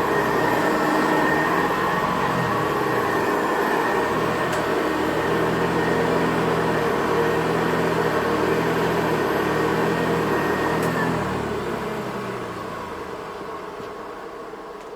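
Vintage Hoover Ranger vacuum cleaner running on its first try, a loud, steady motor noise with a high steady tone. About eleven seconds in it is switched off with a click, and the motor winds down and fades.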